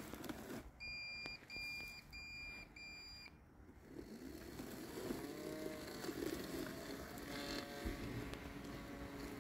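Landxcape LX790 robot lawn mower giving four short, evenly spaced electronic beeps, then its motors whirring with rising and falling pitch as it works through tall weeds.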